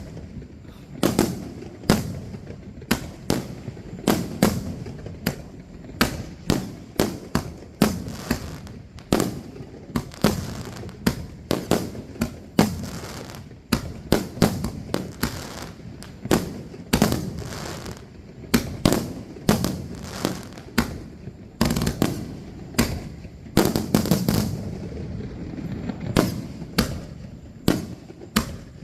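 Aerial firework shells bursting in quick succession, several booms a second, each trailing off in a short echo.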